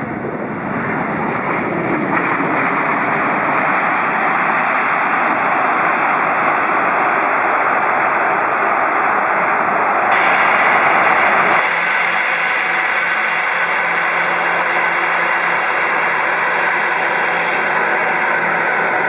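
Jet airliner engines: a loud, steady rushing noise that builds over the first two seconds. About ten seconds in the sound changes abruptly, and soon after a thinner, steadier engine sound with a low hum takes over.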